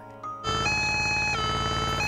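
Cartoon ambulance siren in a two-tone hi-lo pattern, starting about half a second in: a high tone, then a lower tone about a second later, over the cartoon's music score.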